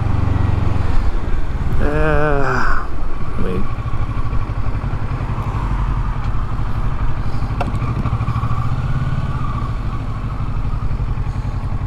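Kawasaki motorcycle engine running steadily at low speed through a slow turn, heard from on the bike. A brief voice comes in about two seconds in.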